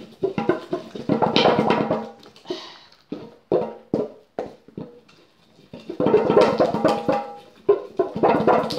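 Pestle grinding oil paint against the side of a bowl: two spells of quick clattering strokes, about a second in and again about six seconds in, with a few single knocks between. It is pigment being ground into linseed oil binder.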